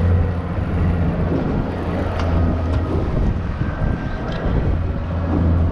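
Boat engine running steadily with a low, even hum, with wind noise on the microphone.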